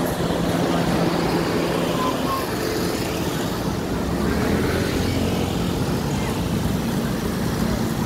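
A large coach bus's diesel engine running as it passes close by, blended with motorcycle engines and steady street traffic noise.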